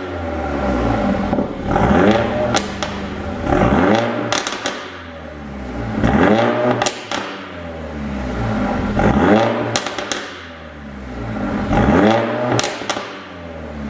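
Mercedes-AMG CLA45's turbocharged 2.0-litre four-cylinder being free-revved over and over, about every two seconds, each rev rising and falling back with a burst of exhaust pops and crackles on lift-off from a pop-and-crackle tune.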